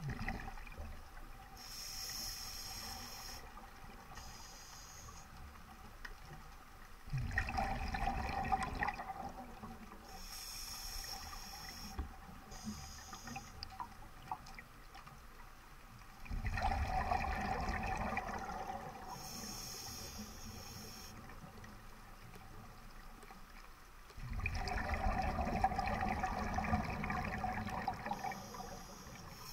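Scuba diver breathing through a regulator underwater: short hissing inhalations through the demand valve, each cycle followed by a long burst of exhaled bubbles, three exhalations in all, about one breath every eight or nine seconds.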